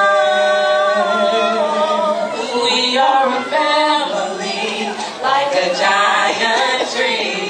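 A group of young women singing a cappella together, holding one long note at the start and then moving into shorter sung phrases.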